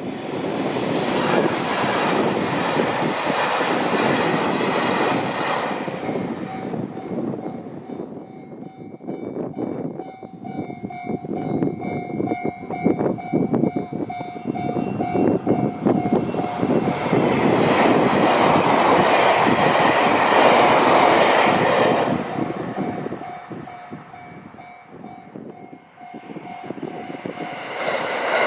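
Trains rushing through a railway level crossing at high speed on JR Hokkaido's Chitose Line. The noise swells twice, with rapid clicks of wheels over rail joints in between. The crossing's warning bell rings steadily and repeatedly.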